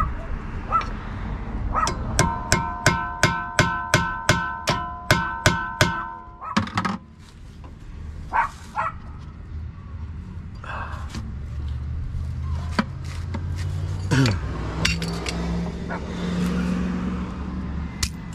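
A run of about a dozen sharp metal strikes, roughly three a second, each leaving a steady bell-like ring, likely a steel brake rotor being struck. Scattered clicks follow, then a low drone near the end.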